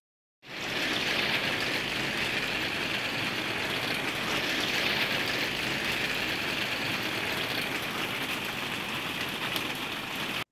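A steady rushing hiss that fades in about half a second in, holds level throughout, and cuts off sharply at the end.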